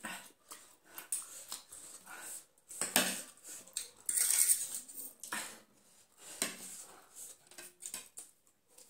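Metal forks and spoons clinking and scraping on plates during a meal, in irregular clicks, with a short rushing sound about four seconds in.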